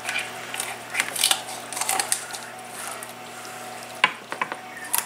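Kitchen shears cutting the backbone out of a raw whole chicken: a run of irregular sharp snips and cracks as the blades bite through bone and cartilage, with a short pause in the middle.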